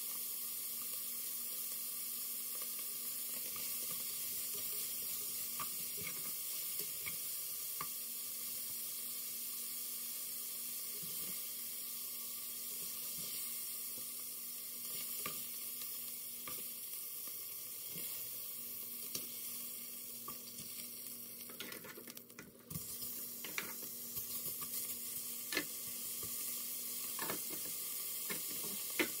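Beef chunks searing in hot fat in an enameled cast-iron Dutch oven: a steady sizzle with scattered pops and the clicks of metal tongs against the pot. The sizzle drops off briefly about two-thirds of the way through, then comes back.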